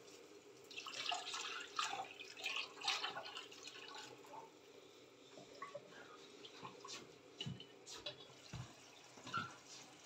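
Liquid poured from a plastic jug into a steel pot of tomato soup base, splashing faintly for a few seconds. Then a wooden spoon stirs the pot, with a few soft knocks near the end.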